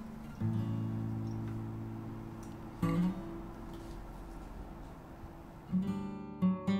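Background music: acoustic guitar playing slow ringing chords, with new chords struck about half a second in and near three seconds, then quicker plucked notes near the end.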